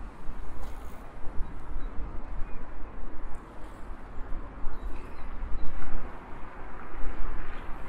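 Wind buffeting the microphones of a moving bicycle: a gusty, uneven low rumble over a steady rushing hiss of air.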